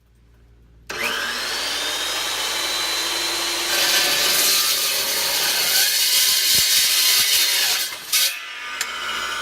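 Alfra 14-inch carbide-tipped low-speed metal cutting saw starting up with a rising whine, then its blade cutting through a steel unistrut channel with a harsher, louder grinding for about four seconds before the cut finishes and the motor runs on.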